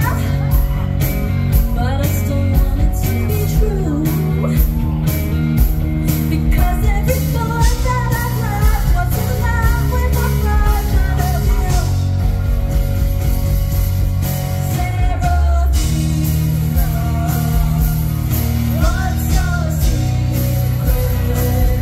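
Live pop-rock band performance: a female vocalist singing over electric guitar, keyboard and drums keeping a steady beat, heard loud through the concert PA.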